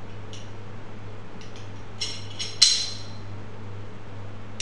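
Glock 17 pistol parts clicking as the recoil spring, barrel and slide are refitted: a few light metallic clicks, then one sharp, loud metallic click with a short ring about two and a half seconds in.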